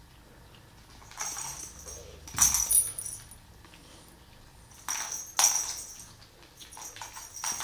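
A jingling cat toy batted about by kittens on a hard floor, in several short jangly bursts, the loudest about two and a half and five and a half seconds in.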